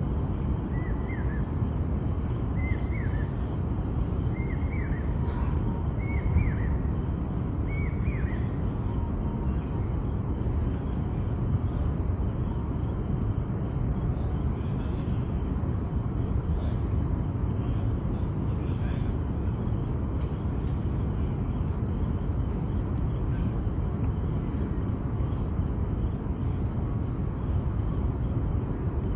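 Steady chorus of insects, a constant high-pitched buzz, over a steady low rumble. For the first several seconds a bird gives a short chirp about once a second.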